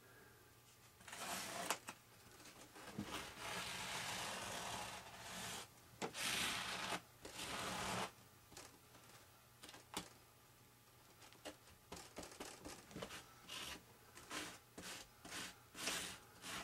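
Plastic scraper dragged over epoxy-wetted fiber tape on a foam wing, making rasping scrapes: a few long strokes, then a quick run of short ones toward the end.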